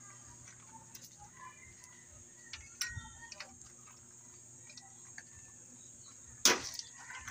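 Light scattered clicks and knocks, with one louder knock about six and a half seconds in; faint chirps in the background.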